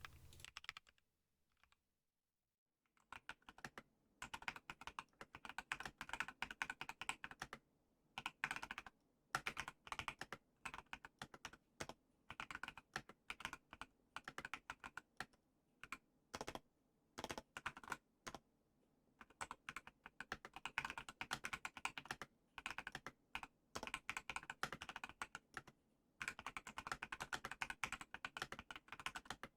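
Typing on a custom 60% keyboard with Everglide Aqua King linear switches in a polycarbonate plate and frosted acrylic case: rapid runs of keystrokes in bursts with brief pauses, starting about three seconds in.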